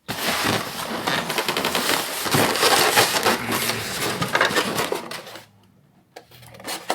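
Rummaging in an espresso machine's packing box: a dense clatter and rustle of packaging, with loose small metal parts jingling. It stops about five and a half seconds in, followed by a couple of faint knocks.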